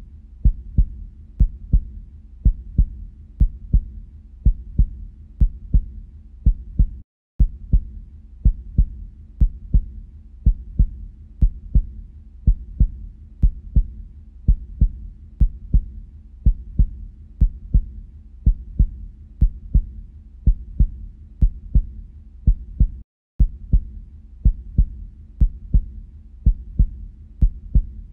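Heartbeat sound: low thudding beats in a steady rhythm, cut out for an instant twice, about seven seconds in and again about five seconds before the end.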